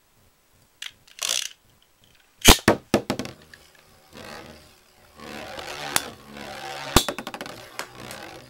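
Two metal Beyblade spinning tops launched and battling: a short whirring rip of the launchers about a second in, a quick run of sharp clacks as the tops land and collide, then a steady scraping spin broken by two loud clashes near the end.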